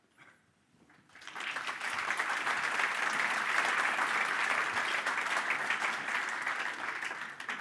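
Audience applauding: many people clapping, starting about a second in, holding steady, and thinning out near the end.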